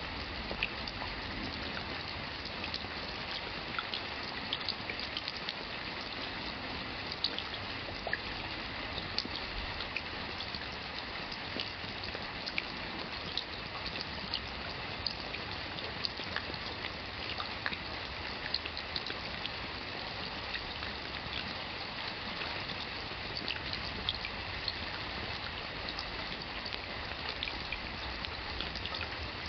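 Steady rain with individual drops tapping and splattering irregularly over a constant hiss of water.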